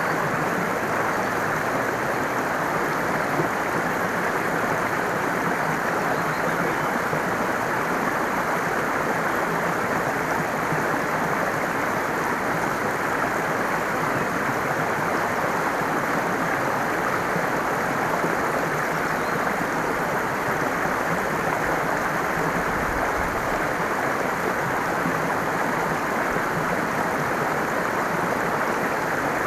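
Running water, a steady, unbroken rush like a stream flowing over rocks.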